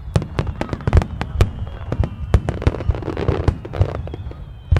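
Aerial fireworks bursting in a rapid, uneven barrage: sharp bangs several times a second over a steady low rumble.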